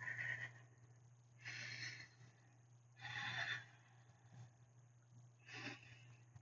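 A woman breathing audibly while holding a forearm plank, four breaths about a second and a half apart, over a steady low hum.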